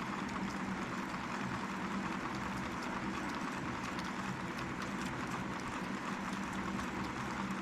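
Zebco 33 spincast reel being cranked steadily to wind new line onto the spool: a continuous whirring of the gears with fine rapid clicking.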